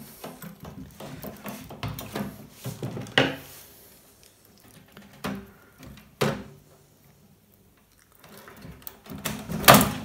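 Pliers and fingers working wire spade connectors and wiring inside a microwave oven's casing: scattered small clicks, taps and knocks of metal and plastic, with a louder knock near the end.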